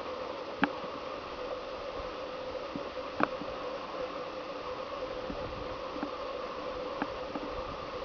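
Woodpecker pecking into pine wood: a handful of separate, irregularly spaced taps, the two loudest about half a second and three seconds in, over a steady background hiss.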